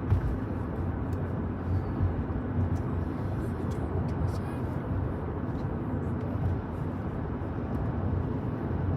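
Steady low rumble of a moving car, with a few faint clicks.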